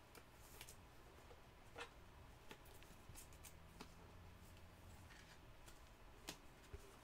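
Near silence, with a few faint clicks of trading cards being handled and slid against one another.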